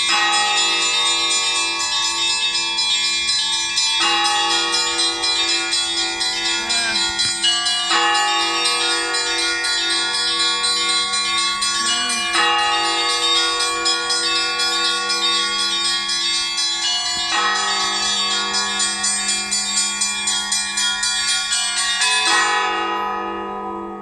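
Orthodox church bells rung together from a belfry: several bells of different pitches struck in a steady repeating rhythm, the pattern of the chime changing every few seconds. Near the end the higher bells fall silent and the ringing fades.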